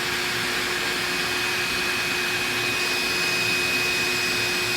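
A steady machine whir with a few constant tones in it, unchanging throughout.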